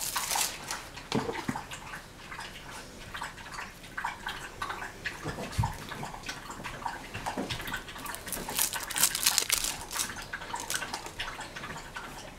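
Scattered small clicks and ticks of a knife cutting surimi crab sticks into pieces over a bowl, with a patch of crackling plastic wrapping at about 8.5–10 seconds.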